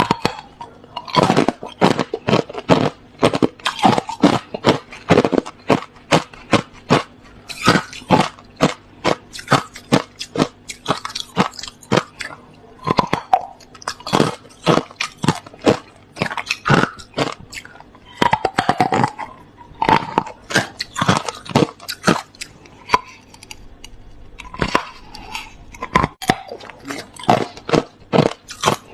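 Close-up crunching and chewing of hard clear crushed ice: a continuous run of sharp, irregular cracks as the pieces are bitten and ground between the teeth.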